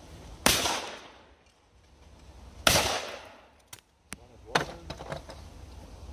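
Two shotgun shots about two seconds apart, each with a short echoing tail, fired at clay targets. A few lighter, sharp clicks follow about a second later.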